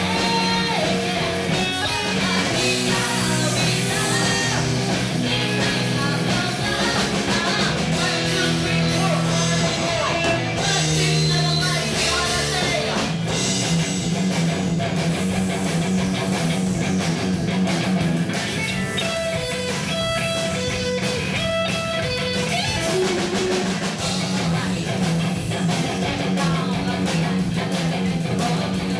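Live rock band playing: electric guitar and bass over drums, with a singer's voice.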